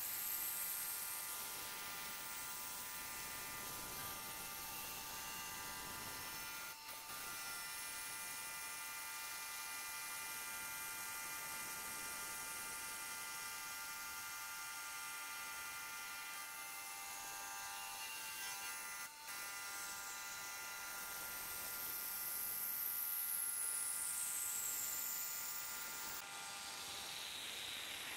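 Milling machine with a rotary head running, its end mill cutting around the top face of a cast aluminium intake manifold: a steady whine of several high tones over a thin hiss.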